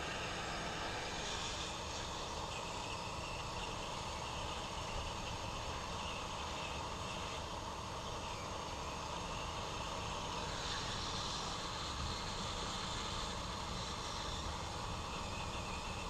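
Hot-air rework gun blowing steadily, a constant whoosh of fan and air, while it heats the board to reflow the solder under a replacement STM32F303 chip.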